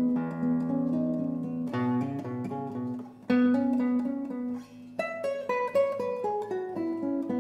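Solo classical guitar, fingerpicked, playing a melody over ringing bass notes, with two brief breaks and then a descending run of notes near the end.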